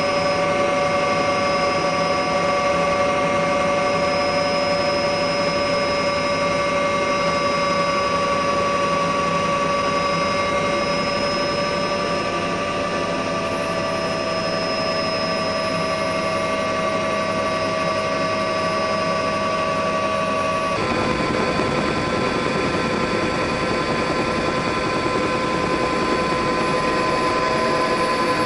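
Bell OH-58 helicopter running steadily: a constant turbine whine, with several steady tones over a rushing noise. The tones shift abruptly about three-quarters of the way through.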